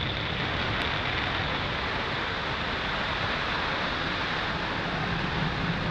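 Steady rumble of a Falcon 9 first stage's nine Merlin engines during ascent, heard as an even noise with no distinct tones. Stage 1 propulsion is nominal.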